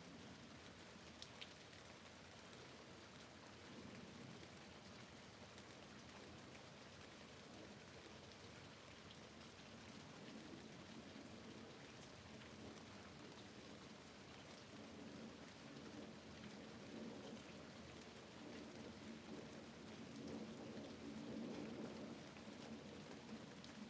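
Faint, steady rain with scattered drops ticking on a window. A low rumble swells over the last several seconds.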